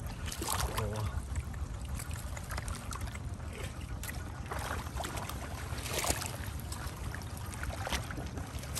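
Shallow muddy water splashing and trickling as a plastic basket is dragged through it and lifted to drain, with several sharper splashes, the loudest about six seconds in, over a steady low rumble.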